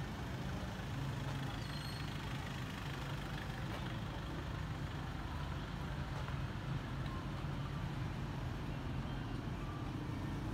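Street traffic: a steady low rumble of vehicle engines running nearby.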